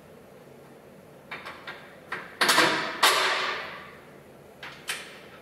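Hand tools working a nut and bolt on a Jeep Wrangler JK's rear suspension. A few light metal clicks are followed by two loud scraping rasps about two and a half and three seconds in, the second trailing off. Two more clicks come near the end.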